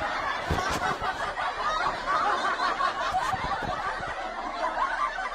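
Laughter: a dense, continuous run of snickering and chuckling with no words.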